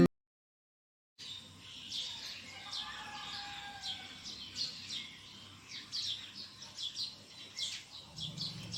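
Birds chirping: many short, high, downward-sweeping chirps that start about a second in and keep coming irregularly.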